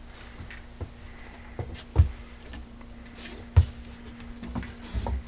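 Handling knocks and clicks as the air rifle and its magazine are picked up and handled, with two louder low thumps about two seconds and three and a half seconds in. A faint steady hum runs underneath.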